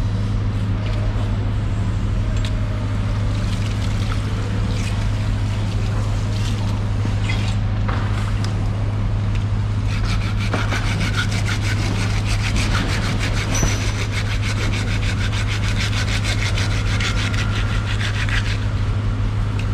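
A long knife sawing through a marlin's scaly skin and flesh: rasping scrapes, densest and loudest from about halfway through until shortly before the end. Under it runs a steady low machine hum.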